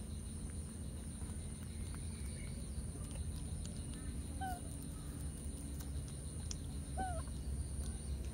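Two short chirping animal calls, each rising then falling in pitch, one about halfway through and one near the end, over a steady low rumble and a faint, steady high whine.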